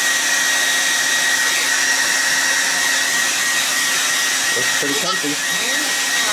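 Handheld hair dryer running steadily, blowing on a baby goat's coat to dry it, with a thin high whine over the rush of air.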